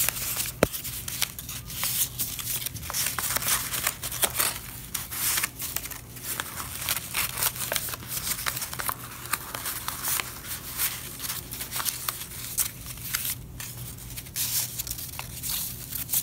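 Construction paper rustling and crinkling as a paper strip is threaded over and under the slits of a paper loom and pushed into place, with many small irregular scrapes and crackles.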